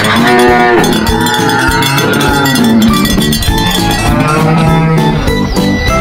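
A cow mooing over background music.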